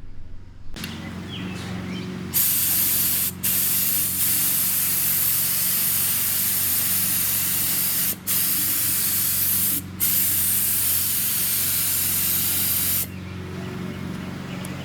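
Paint sprayer hissing in one long spray that stops briefly three times, over a steady low hum that starts about a second in.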